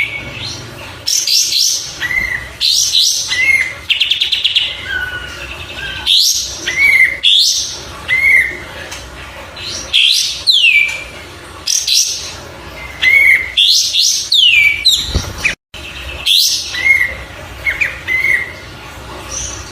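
Kapas tembak bulbul singing a repeated song of short, falling whistled notes and quick chirps, a phrase every second or so. There is a brief rattling trill about four seconds in.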